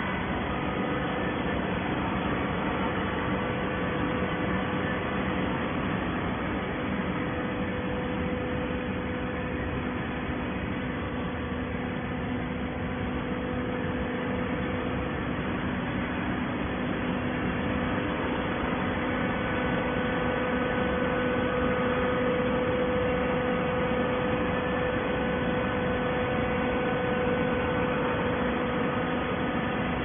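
Horizontal hydraulic carton baler running with a steady mechanical hum, a little louder in the last third.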